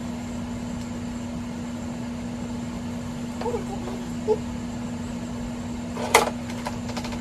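Steady low electrical hum, with one short sharp crackle about six seconds in, the loudest moment, as a plastic bag of shredded cheese is handled. There are a couple of faint murmurs in the middle.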